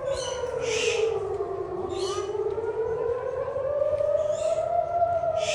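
Civil defence air raid siren wailing, its pitch slowly falling and then rising again over a few seconds.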